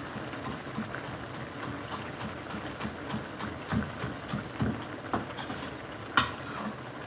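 Chef's knife chopping cilantro on a wooden cutting board: a run of light, quick taps, with one sharper knock about six seconds in.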